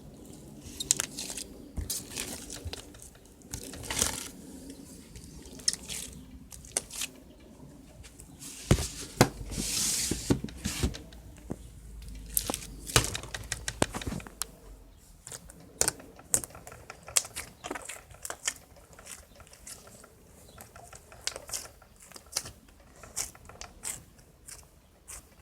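Hands squishing, poking and stretching slime that is not yet ready, giving many short sticky clicks and pops, with a longer wet crackle about ten seconds in.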